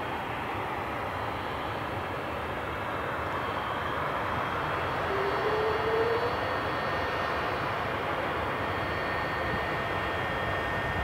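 Tupolev Tu-95MS's Kuznetsov NK-12 turboprop engines running on the ground with their contra-rotating propellers turning: a steady drone with a high whine, and a brief rising tone about five seconds in.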